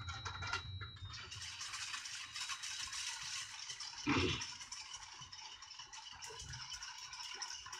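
A utensil stirring soy-sauce simmering liquid in a stainless steel bowl, undissolved sugar grating gritty against the metal bottom: the shari-shari sound that lasts until the sugar has dissolved. The scratchy stirring starts about a second in, with one louder bump about four seconds in.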